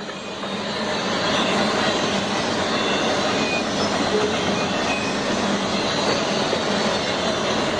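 Freight train of auto rack cars rolling past at close range: a steady rumble and rattle of wheels and cars, building over the first second or so and then holding even.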